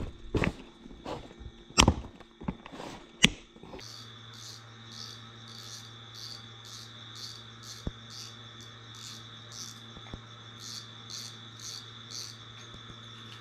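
A cricket chirping in a regular pulse, about two chirps a second, over a low steady hum. A few sharp knocks come in the first four seconds, before the chirping starts.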